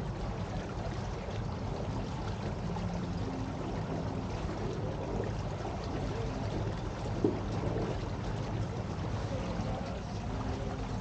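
A boat under way on a river: a steady low rumble with water washing past the hull. One short knock sounds about seven seconds in.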